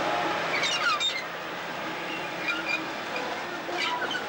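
Brill Model 75 railcar rolling slowly past close by: steel wheels running on the rail with a steady rumble and thin high squeals from the wheels, with short squeals about a second in and again near the end.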